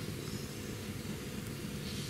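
Steady background noise: a low hum with hiss above it and no distinct event.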